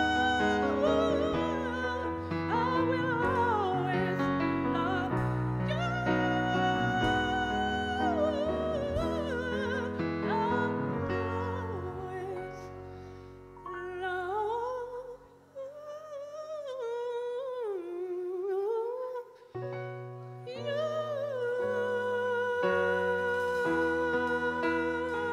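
Live song: a singer holding long, wavering notes over keyboard chords. About halfway through, the bass and chords drop away and the voice carries a softer passage nearly alone, then the full accompaniment comes back in.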